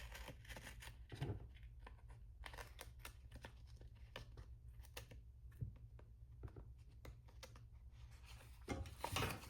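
Faint handling of paper and sticker sheets while cutting out stickers: scattered small clicks and rustles, with a few louder knocks about a second in, in the middle and near the end.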